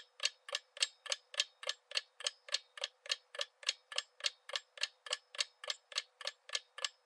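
Clock-ticking sound effect for a quiz countdown timer: sharp, evenly spaced ticks, about three and a half a second.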